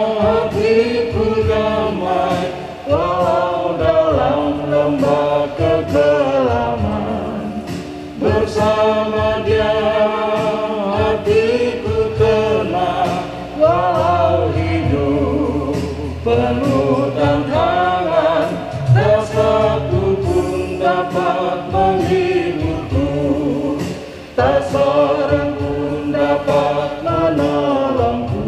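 A small group of men and women singing a Christian song together in Indonesian, phrase after phrase, with short breaths between lines.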